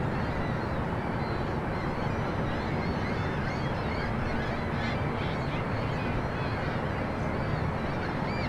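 Gulls calling over the water, many short high cries one after another, over a steady rushing noise.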